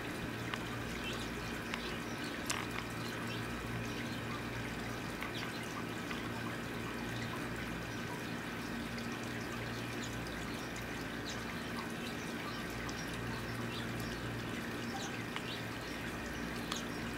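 Steady background hum and hiss, with a few faint light ticks scattered through it.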